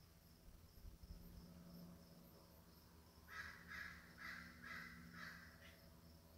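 Steller's jay giving a harsh series of five rasping calls, about two a second, starting about halfway through.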